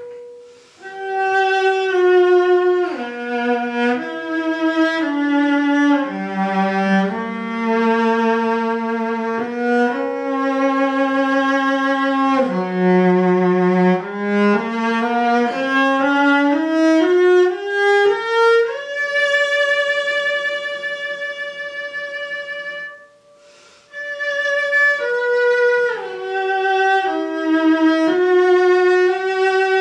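Solo cello, a ten-year-old Korean-made instrument, bowed through a melody of stepped notes: a run climbs to a long held high note, there is a brief break about three quarters of the way through, then the phrase resumes.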